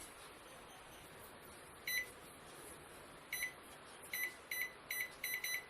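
Microwave oven control panel beeping as the cooking time is keyed in: about eight short single-pitch beeps, one near two seconds in, then coming faster and closer together toward the end.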